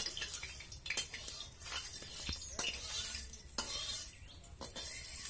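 A long metal ladle scraping and knocking against an iron kadai, with scattered sharp clicks, as it is stirred through hot oil. A faint sizzle of the oil runs underneath.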